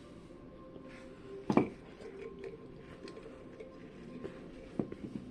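Quiet room with the faint sounds of someone eating a cookie: small clicks and mouth noises, with one short, louder sound about a second and a half in.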